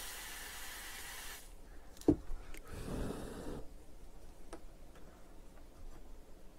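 Aerosol freeze spray hissing in a steady jet onto the power supply's capacitors, chilling them to find the failing one; it stops about a second and a half in. A sharp knock follows, then a brief rustle and a few light clicks of handling.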